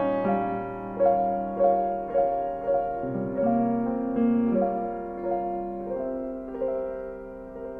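Soft piano music: single notes played at an unhurried pace over held chords in the lower register.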